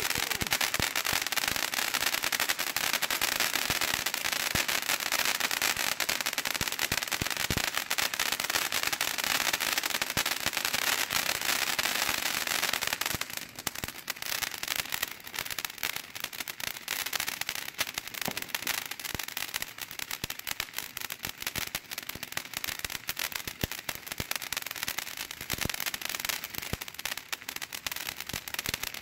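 World Class Fireworks "Time to Shine" 200-gram fountain firework burning: a dense, steady spray of hissing shot through with many sharp crackling pops. About thirteen seconds in it drops noticeably in loudness and keeps burning at the lower level.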